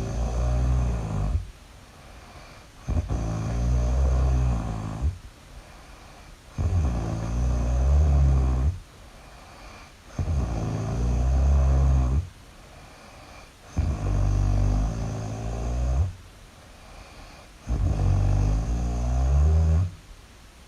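Loud, regular snoring. Each snore lasts about two seconds and comes roughly every three and a half seconds, with quieter breathing gaps between snores.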